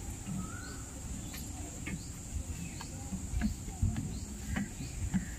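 Footsteps climbing outdoor stairs, about two dull thuds a second. Under them runs a steady high insect drone, with faint scattered chirps.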